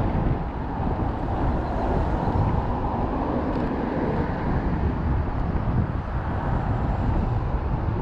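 Wind rushing over a chest-mounted GoPro microphone on a moving road bike, mixed with road traffic; a steady, deep, rough rush with no breaks.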